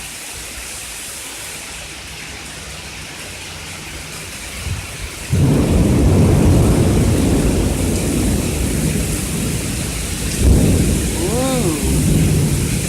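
Heavy rain pouring down in a thunderstorm, overflowing the roof gutters. About five seconds in, a loud roll of thunder breaks in suddenly and keeps rumbling.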